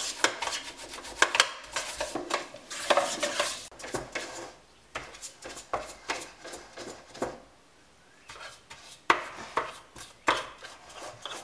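Silicone pastry brush dabbing and scraping margarine around the inside of a metal tube cake pan: a quick, irregular run of light taps and scrapes on the metal, with a short lull about two-thirds of the way through before a few sharper taps.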